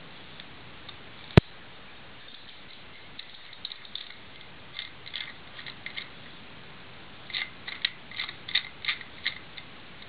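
Master combination padlock being worked by hand for manipulation: one sharp click about a second in, then irregular light metallic clicks from the lock, sparse at first and coming several a second near the end.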